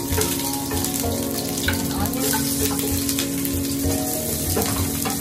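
Garlic and sliced onion sizzling in hot oil in a nonstick frying pan, stirred with a wooden spatula, over background music with a steady beat.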